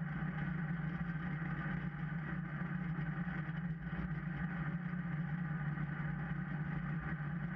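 Vehicle engine running steadily at an even speed, a constant low drone that cuts off abruptly at the end.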